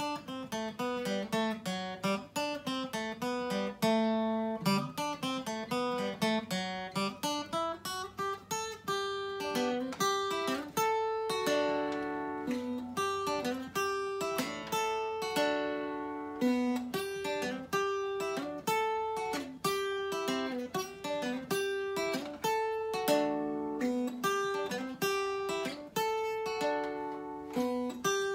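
Solo cutaway acoustic guitar played without singing, picking a steady run of single notes and chords.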